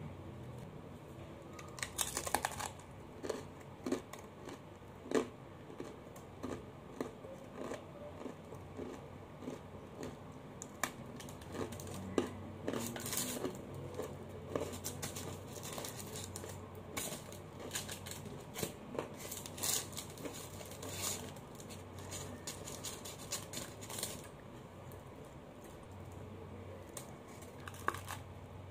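Table knife scraping butter onto a piece of crusty homemade bread: many short, irregular scratches and taps of the blade against the crust and crumb.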